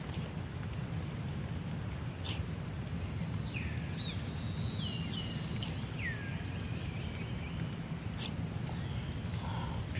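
Outdoor wildlife sound: several short falling whistled bird calls over a steady high insect drone, with a low steady rumble underneath and two sharp clicks.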